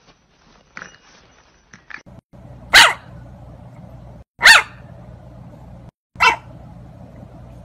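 Bulldog puppy giving three short, loud barks about a second and a half apart, each falling in pitch.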